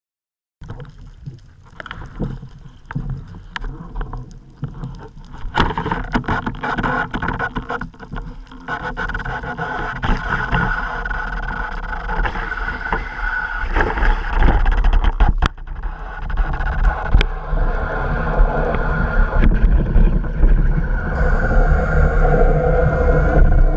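Underwater sound picked up by a gun-mounted camera in its housing as a spearfisher swims up: a low rushing rumble of water moving past the housing that grows louder as the swim goes on, with scattered clicks and knocks.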